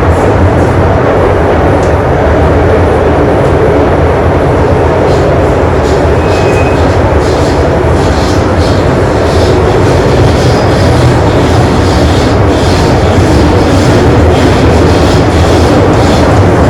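Inside an MTR Island Line M-train (Metro-Cammell electric multiple unit) running through the tunnel: a loud, steady rumble of wheels and motors. Rail clicks come more often from about five seconds in.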